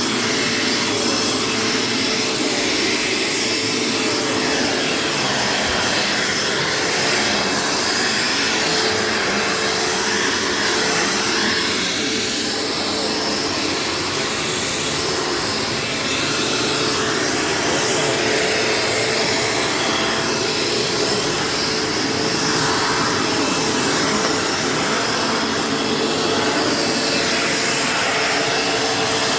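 A 1990 bagged Dirt Devil Featherlite vacuum cleaner running steadily: a constant rushing of air over a steady motor hum.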